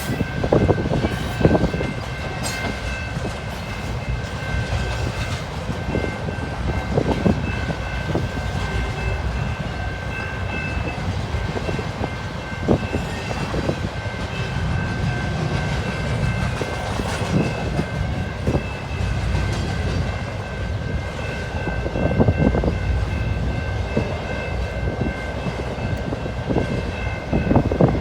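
CP Rail freight train rolling past: a steady rumble of wheels on rail, with scattered clicks from the rail joints and thin, high steady tones that come and go.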